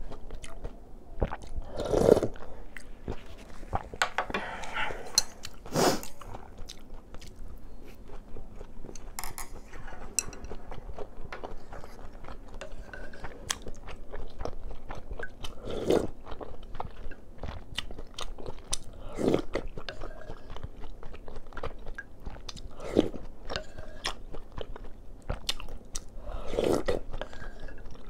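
Close-miked eating of seolleongtang: chewing with small clicks of a metal spoon against the earthenware bowl, and a louder slurp of broth from the spoon every few seconds, about six times.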